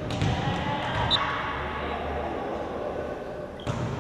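Background voices of spectators and players in an indoor volleyball hall, with one sharp thump near the end as a volleyball is struck, likely a serve.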